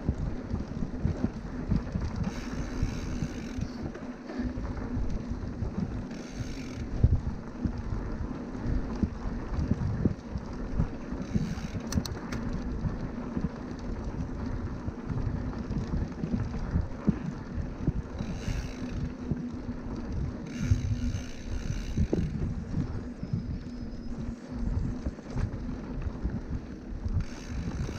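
Mountain bike rolling over a dirt trail: wind buffeting the microphone over a continuous rumble of tyres and bike on rough ground, with a steady low hum. Several short stretches of a higher buzz come and go.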